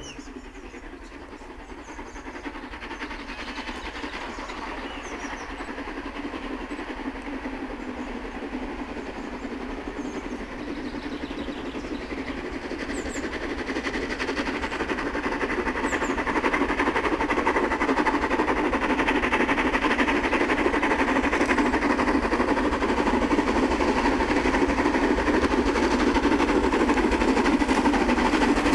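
Steam locomotive hauling a train of coaches approaching along the line, its running and exhaust sound growing steadily louder as it nears.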